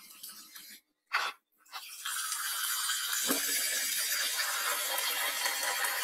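Tap water running steadily into a metal pot of rice in a sink as the rice is rinsed, starting about two seconds in after a short click, with one knock of the pot about a second later.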